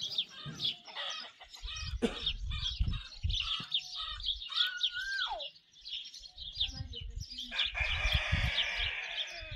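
Chickens clucking amid a steady run of short, high chirps, with stretches of low rumbling underneath.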